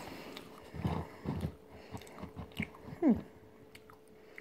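Quiet mouth sounds of someone chewing a sun-dried white mulberry: a few soft irregular bites and small clicks, with a short falling hum from the chewer about three seconds in.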